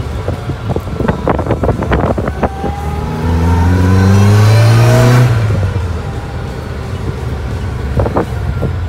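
Supercharged air-cooled 1600 flat-four of a 1967 VW Beetle, heard from inside the cabin while driving. A run of sharp knocks comes in the first couple of seconds; about three seconds in the engine revs up under acceleration, its pitch rising for about two seconds, then falls back to a steady cruising rumble.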